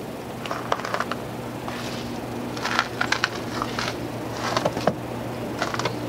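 Footsteps crunching in fresh powdery snow on a deck, coming in irregular clusters of soft crunches, over a steady low hum.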